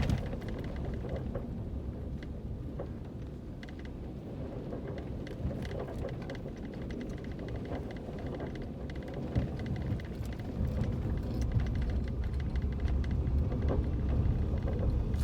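Low road rumble inside a vehicle's cab as it drives slowly over a bumpy dirt road, with scattered knocks and rattles from the jolts; the rumble grows louder about two-thirds of the way through.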